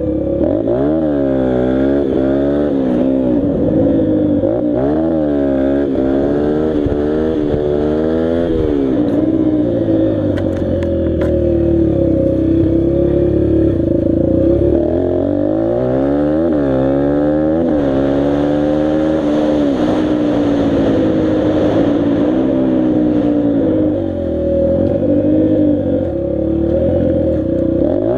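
Dirt bike engine being ridden hard, its pitch rising and falling over and over as it revs up and drops back, with a steadier stretch about halfway through.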